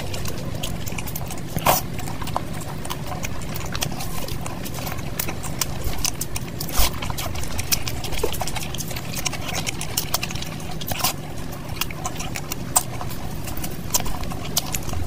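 Fingers squeezing and mixing fried rice with curry gravy, making irregular wet, sticky squelches and clicks over a steady low hum.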